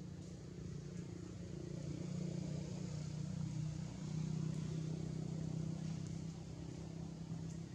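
A motor vehicle's engine running steadily with a low hum, getting louder about two seconds in and then holding.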